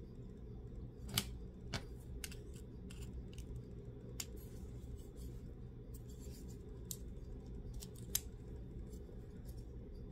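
Irregular light clicks and taps of a pointed metal pick prying at a small diecast toy car and its parts, over a low steady hum. The sharpest clicks come about a second in and near the end.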